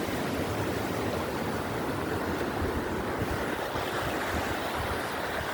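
Steady rushing of running water, with wind buffeting the microphone.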